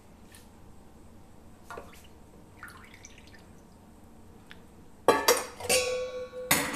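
Warm milk pouring quietly from a steel pot into a steel container, followed near the end by two sharp, ringing clinks of steel utensils knocking together.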